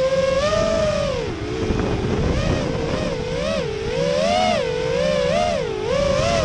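Electric motors and propellers of an FPV racing quadcopter whining, the pitch dipping then swinging quickly up and down with the throttle, over a low wind rumble.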